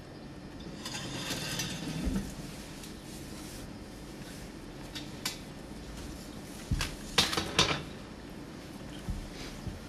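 Objects clinking and knocking against a metal pail as it is handled, with a rustle about a second in and a quick run of loud clinks about seven seconds in.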